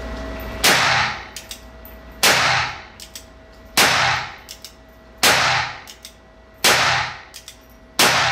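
Six shots from an Uberti 1875 No. 3 Schofield single-action top-break revolver chambered in .38 Special, fired slowly about a second and a half apart, each with a short echoing tail. Fainter clicks come between the shots as the hammer is cocked for each one.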